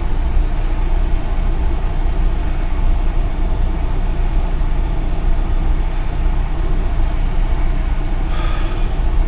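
Steady low rumble of a semi truck's diesel engine idling.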